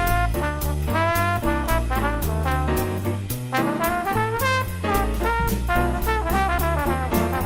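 Upbeat jazz-style background music led by brass horns, over a stepping bass line and a steady drum beat.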